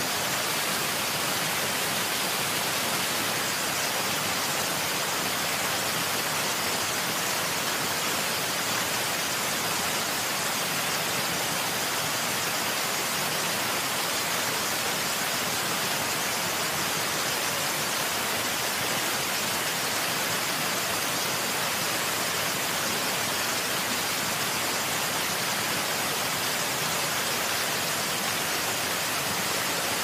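Waterfall: a steady, unbroken rush of falling water, even and hissy with no changes.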